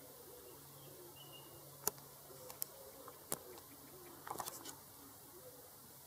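Shallow stream running quietly over a stone ledge, a faint steady wash of water. A few sharp clicks stand out, singly about two and three seconds in and as a quick cluster just after four seconds.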